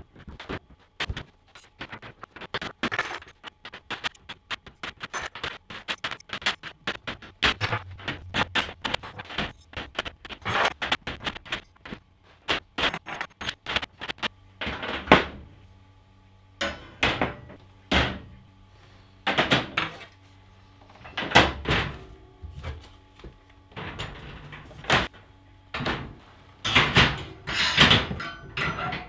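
Metal wire pegboard hooks clicking and rattling as they are pushed into the holes of a pegboard and tools are hung on them: many irregular sharp clicks and knocks, with some heavier knocks in the second half.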